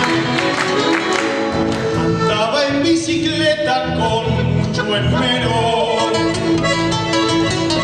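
Live acoustic folk music: a singing voice with guitar accompaniment, playing continuously.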